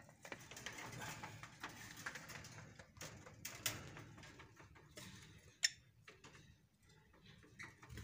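Irregular light clicks, taps and scraping as the phone and hand brush against the wire cage bars and the clay-pot nest, with one sharp click about five and a half seconds in.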